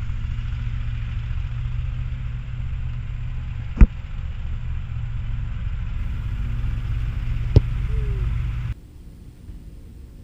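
Steady hum of a mowing machine's engine working the field, with two sharp thuds of a soccer ball being kicked, about four seconds apart. The engine sound cuts off suddenly near the end.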